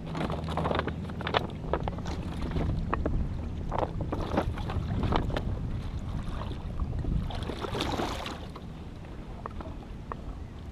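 Handling noises aboard a kayak: irregular knocks and clicks against the hull and rustling, over a steady low rumble of wind on the microphone. The sound quietens after about eight seconds.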